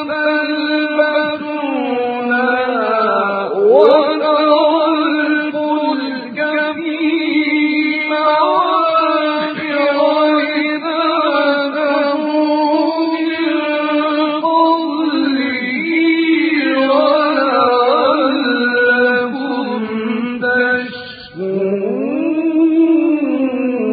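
A male reciter chanting the Quran in a slow, melodic style, one voice drawing out long, ornamented notes that glide up and down, with a short breath near the end.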